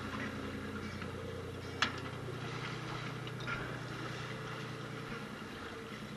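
Fishing boat's engine running steadily, with one sharp knock about two seconds in and a few lighter clicks.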